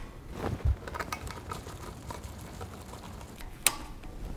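Light, scattered clicks and taps of a pump's coupling guard being fitted by hand and its screws driven with a Torx screwdriver, with one sharper click near the end.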